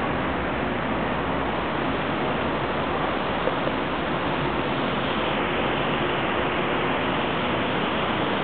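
Steady, even rushing city background noise.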